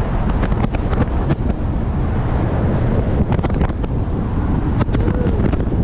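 Wind buffeting the microphone: a steady, rough low rumble with scattered small knocks.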